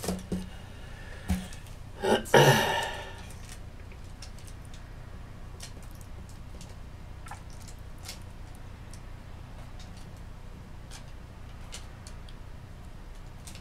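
Wooden-handled metal sculpting tools knocking and clattering as they are picked up and set down on a wooden tabletop, with a loud cluster of knocks about two seconds in, then only a few faint ticks over a steady low hum.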